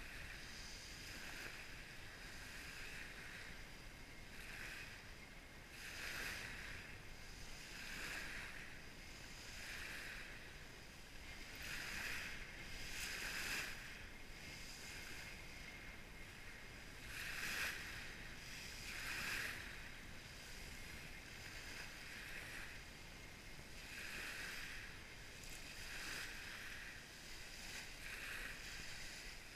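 Small waves washing onto a pebble beach, one after another every second or two, each surge rising and falling over a steady hiss.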